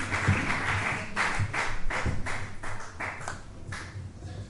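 A congregation's applause thinning out into scattered hand claps, about four a second, that weaken and stop shortly before the end.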